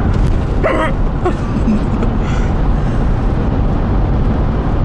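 Steady road and engine rumble inside a moving car, with one short sharp vocal catch less than a second in: a hiccup.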